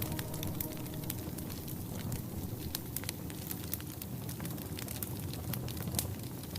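Wood fire crackling in a fireplace: irregular sharp pops and snaps over a steady low rushing noise.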